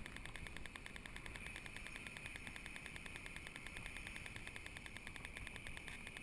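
A faint, rapid pulsing high buzz, about seven pulses a second, over a low rumble of wind on the microphone.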